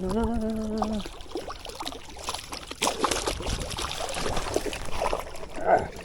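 A short held voice note, like a hum or drawn-out exclamation, then scattered rustling, scraping and clicking handling noise mixed with a faint trickle of water. A brief louder vocal sound comes near the end.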